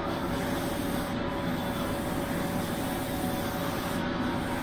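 Airbrush and its air compressor running, a steady hum with an even hiss of air.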